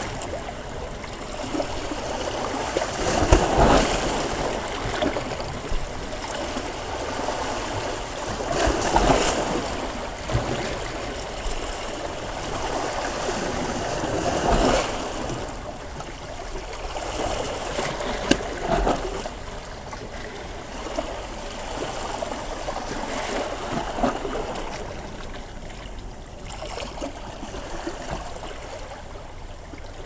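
Ocean waves breaking and washing up the shore, each wave swelling about every five to six seconds, with the surf growing quieter near the end.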